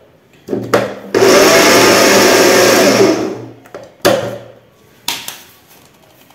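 Electric blender pulsed to grind lemon peel: two quick pulses, a loud run of about two seconds that winds down, then two more short pulses.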